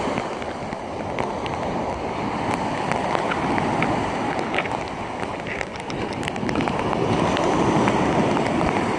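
Storm wind buffeting the microphone over surf breaking on the beach, swelling and easing in waves, with scattered light ticks of rain.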